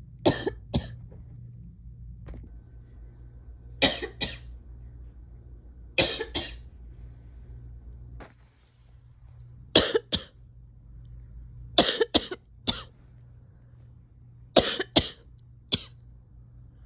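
A person coughing in short bouts of two or three coughs, seven bouts spaced a few seconds apart, over a steady low hum.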